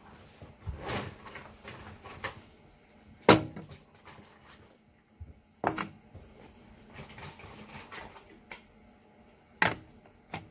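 Small plastic toy pieces (Littlest Pet Shop accessories) being handled and set down close to the microphone: three sharp clacks a few seconds apart and a smaller one near the end, with soft handling rustle between.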